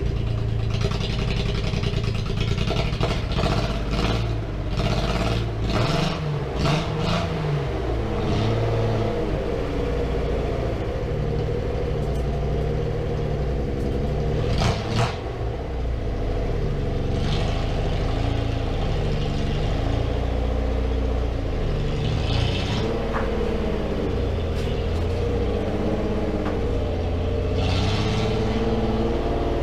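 1975 Datsun 280Z's 2.8-litre straight-six running on freshly fitted fuel injectors, its engine speed rising and falling as the car is driven slowly, with scattered knocks and clatters, most in the first few seconds.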